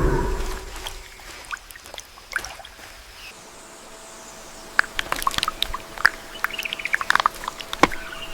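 Forest ambience with birds chirping: short calls and clicks that grow busier in the second half, after a low rumble fades out in the first second.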